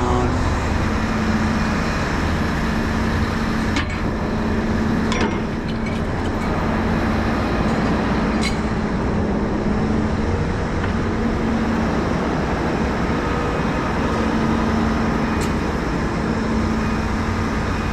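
Heavy diesel engine of a large mobile crane running steadily with an even hum, with a few faint metallic clicks.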